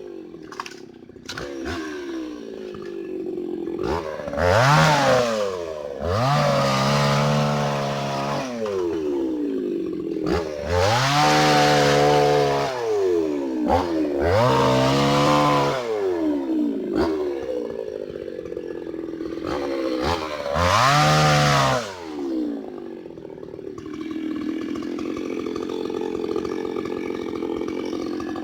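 Hyundai mini chainsaw cutting rubber tree wood, its motor surging up and falling back about six times. For the last few seconds it runs steadily at a lower pitch.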